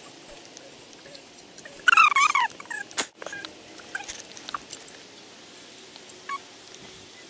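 A short animal cry about two seconds in, wavering and falling in pitch and the loudest sound here, followed a second later by a sharp click. Underneath, the faint scratching and clicking of a garden rake working mulch.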